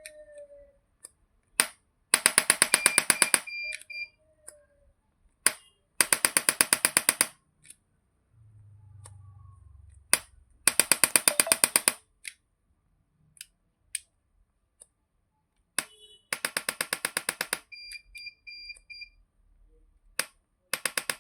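Biotronix 350 N electric chiropractic adjusting gun firing in bursts of rapid impulses, about ten clicks a second for just over a second each, five bursts a few seconds apart. Single clicks fall between the bursts, with a few faint high beeps.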